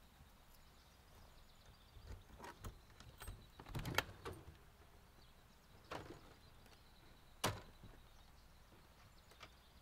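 Rear entry door of a vintage Slumber Queen slide-in truck camper being unlatched and swung open: a few scattered clicks and knocks, the sharpest about seven and a half seconds in, over a faint quiet background.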